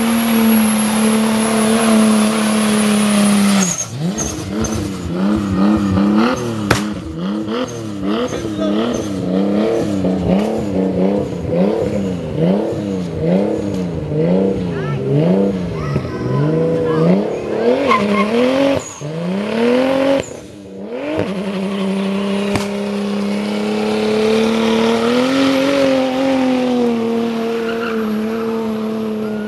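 Nissan Skyline R33 doing a burnout: the engine is held at high revs with the rear tyres spinning and squealing. A few seconds in, the throttle is pumped so the revs rise and fall about once a second; after a brief drop the engine is held steady and high again.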